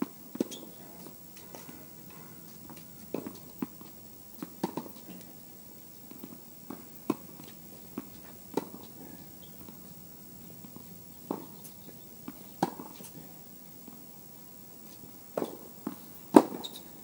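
Tennis balls being struck by rackets and bouncing on the court: a series of sharp pops at uneven spacing, mostly a second or two apart, some in quick pairs, the loudest near the end.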